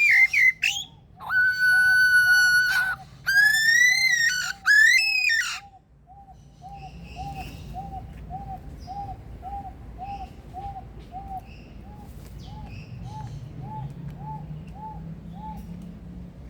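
Male superb lyrebird giving loud mimicked whistles: one held whistle, then two wobbling whistles that rise and fall, stopping about five and a half seconds in. A soft short chirp repeats about twice a second until near the end, with faint bird chirps behind it.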